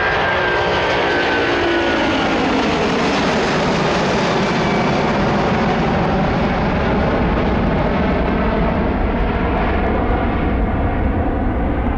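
Jet airliner's engines passing close: the engine tones fall in pitch over the first couple of seconds, then a loud, steady roar with a deep rumble carries on, its high hiss thinning near the end.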